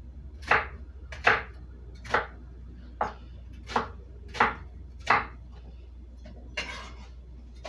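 Chef's knife chopping a red onion on a wooden cutting board: seven sharp, evenly spaced chops, a little under one a second, then one longer, softer stroke near the end.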